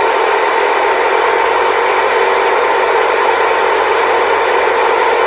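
CB radio speaker giving out a loud, steady static hiss, confined to the radio's narrow audio band.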